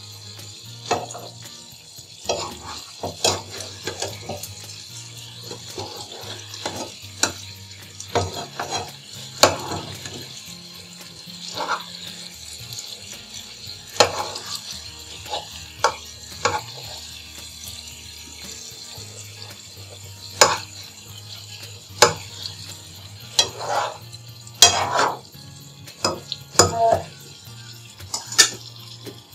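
Stuffed brinjals frying in oil in a non-stick pan: a steady sizzle, with frequent clicks and scrapes of a utensil against the pan as the brinjals are turned over gently.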